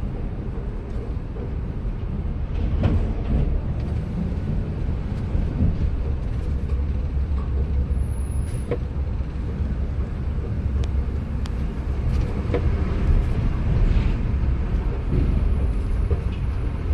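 Vehicle in slow city traffic: a steady low rumble of engine and road noise, with a few faint clicks.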